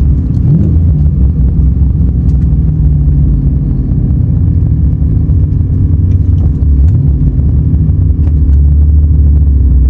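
Infiniti G35's 3.5-litre V6 running under way, a steady low drone with a short rise in pitch about half a second in and another near seven seconds, growing a little louder near the end.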